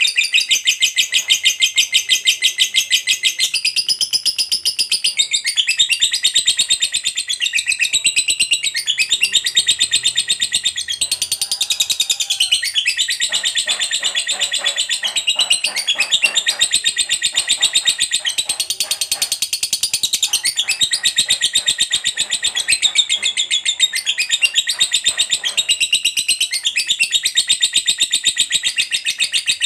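Lovebird in a long 'ngekek': a rapid, high-pitched chattering trill of many notes a second that runs on without a break.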